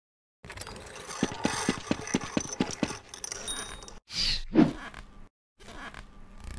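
Animation sound effects: a rapid mechanical clicking of about six or seven ticks a second, then a loud swoop falling in pitch about four seconds in.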